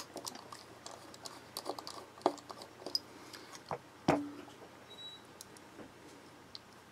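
Faint small clicks and taps of a precision screwdriver turning out the handle screws of an Eafengrow EF973 folding knife, with the knife and driver handled and knocked against a silicone mat; a sharper knock about four seconds in is the loudest.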